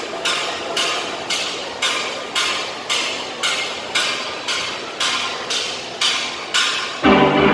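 A steady count-in of sharp taps, about two a second, setting the tempo for a steel band. About seven seconds in, the full steel orchestra of pans and drums comes in together.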